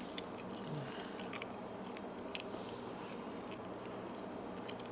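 Faint, scattered small clicks of a disc detainer pick turning the discs inside a disc detainer padlock as it is picked, over a steady low hum.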